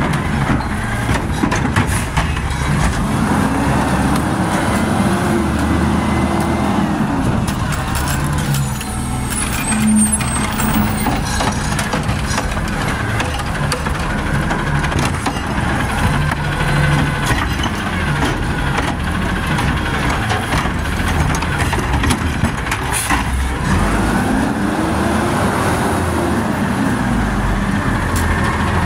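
Automated side-loader garbage truck's diesel engine revving up and falling back twice as its hydraulic arm lifts and tips wheeled trash carts into the hopper, over a steady idle, with a few sharp knocks from the carts and arm.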